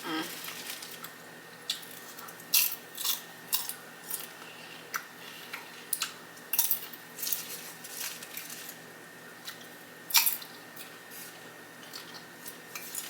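Close-miked chewing of a sub sandwich loaded with lettuce, green peppers, pickles and banana peppers: irregular crisp crunches and wet mouth clicks, the loudest about ten seconds in.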